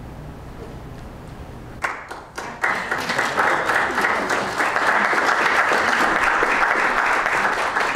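Audience applauding: a few scattered claps about two seconds in, building at once into steady applause from the whole room.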